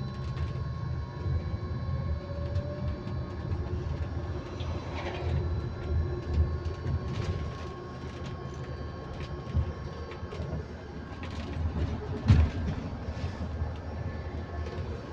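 Electric bus on the move, its drive giving a steady high whine at a constant pitch over a low road rumble. Body rattles and bumps run throughout, with one loud knock late on.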